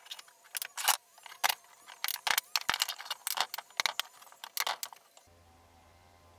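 Metal clamps clicking and clinking as they are set and tightened on a wooden frame joint: a quick, irregular run of sharp metallic clicks that stops about five seconds in.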